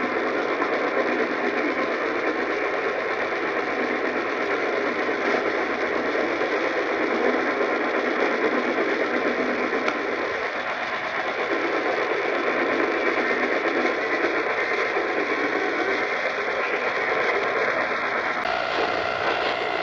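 Steady radio static: an even hiss from a poorly received broadcast, with no voice or alert tones, changing abruptly near the end.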